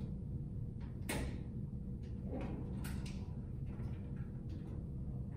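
Hands working wires and connectors inside a light fixture: a few light clicks and rustles, over a steady low hum.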